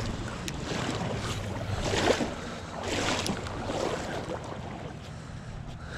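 Water sloshing and rushing in a shallow trout stream, in uneven swells about a second apart that ease off near the end.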